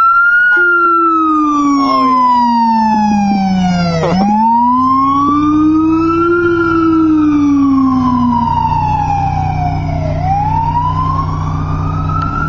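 Siren of a responding fire department command vehicle in wail mode, rising and falling slowly about every six seconds. A second, much lower siren tone follows the same rise and fall and stops about two-thirds of the way through. Steady low vehicle rumble underneath.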